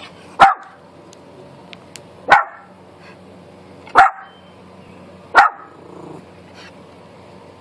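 Small black-and-tan dog barking at a neighbour's dog: four single sharp barks, about one and a half to two seconds apart.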